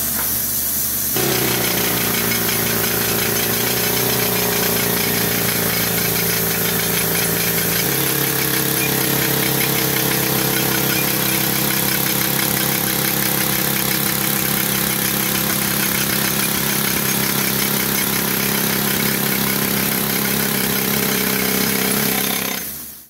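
Compressed air hissing, then about a second in a pneumatic jackhammer rock drill starts drilling a rock-bolt hole into the slope: a steady, loud hammering racket with a droning note that shifts about eight seconds in.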